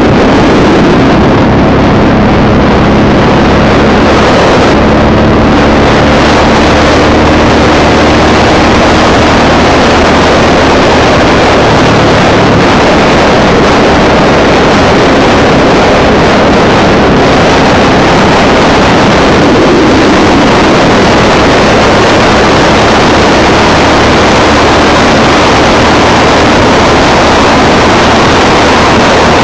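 Cruiser motorcycle riding at highway speed: a loud, steady rush of wind and engine noise, with the engine's low hum shifting slightly in pitch now and then.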